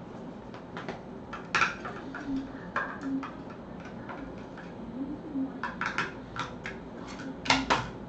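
Irregular light clicks and taps, some in quick clusters, with the loudest pair near the end.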